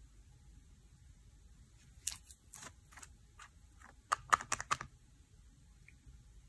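Glass nail polish bottle being opened by hand: a few small clicks and scrapes as the cap twists loose about two seconds in, then a quick run of sharp clicks just after four seconds as the cap and brush come off the glass neck.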